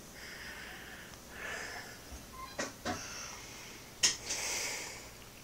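A person breathing close to a handheld phone's microphone, soft hissing breaths every second or so, with two faint clicks near the middle and one sharp knock about four seconds in.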